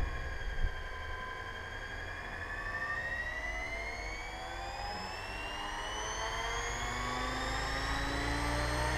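Radio-controlled helicopter spooling up on the ground, its motor and rotor whine climbing steadily in pitch.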